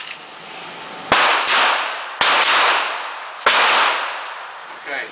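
Four handgun shots from several shooters firing a two-round string on a whistle signal: two close together about a second in, then single shots about two and three and a half seconds in, each ringing off in a long echo.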